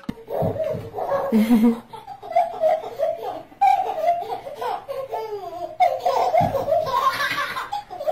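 A baby laughing in several bursts of high-pitched giggles.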